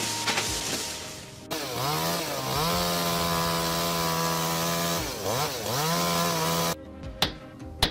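Chainsaw revving up to a steady high speed, dropping off once and revving back up, then cutting off abruptly.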